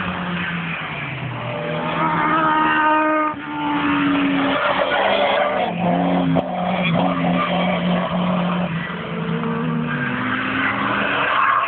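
Peugeot 205 turbo car driven hard on a race track, its engine revving up and dropping back through gear changes, with a brief dip about three seconds in. Tyres squeal under load.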